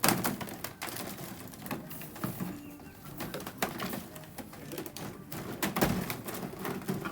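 Empty plastic bottles crackling, clattering and knocking together in a plastic kiddie pool as puppies push through them after treats: irregular crinkles and clicks, with a louder crack at the start and a duller thump about six seconds in.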